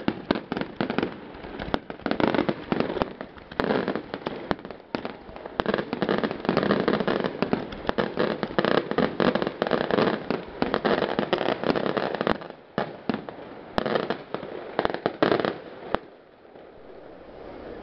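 Fireworks finale barrage: a dense, rapid run of bangs and crackling from bursting shells. It thins to scattered bangs about twelve seconds in and dies down near the end.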